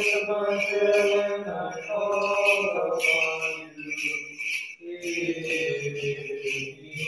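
Voices chanting a Byzantine liturgical psalm in long, held notes, with a break about four seconds in. Over the singing, censer bells jingle in a steady rhythm about twice a second as the censer is swung.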